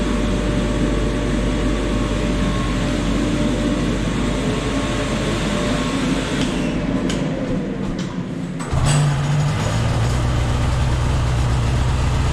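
A steady rushing fan noise winds down and fades out over about two seconds, starting about six seconds in. About nine seconds in, the Polaris Axys 800's two-stroke twin starts up and idles steadily on the dyno, a low even hum.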